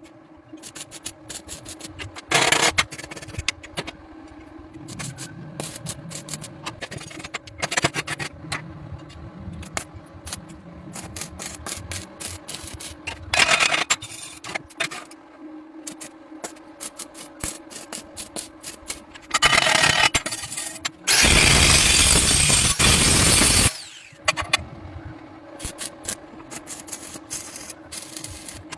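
Hand tools scraping and rubbing on a workpiece in irregular strokes, over a steady hum. A little past the middle, a loud hissing noise starts and stops abruptly and lasts about two and a half seconds.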